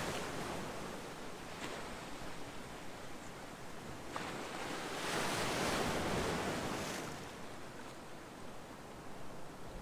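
Ocean surf: waves breaking and washing up the shore, the rush swelling with a fresh wave about four seconds in and ebbing again about three seconds later.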